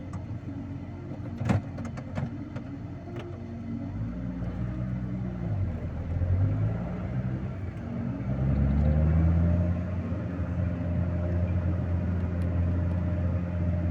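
A vehicle's engine working under load, its pitch rising and falling several times, then holding steady and louder from about halfway through. A sharp knock sounds about a second and a half in.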